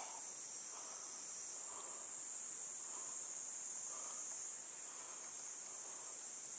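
Steady high-pitched insect chorus, even and unbroken.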